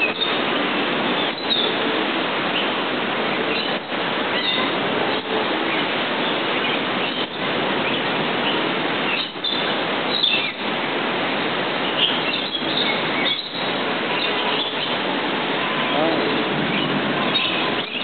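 Aviary ambience: a steady wash of noise with indistinct voices, and scattered short bird chirps and calls throughout.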